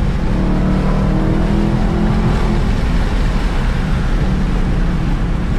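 Dodge Challenger Hellcat's V8 running steadily at highway cruise, heard from inside the cabin with tyre and road noise.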